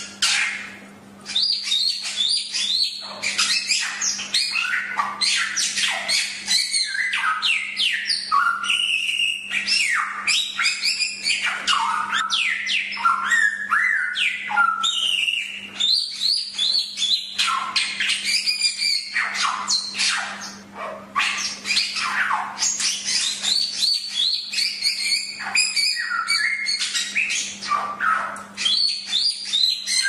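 Samyong (golden whistler) singing continuously: a rapid, varied stream of sweeping, mostly falling whistled notes and harsher chattering calls, over a faint steady low hum.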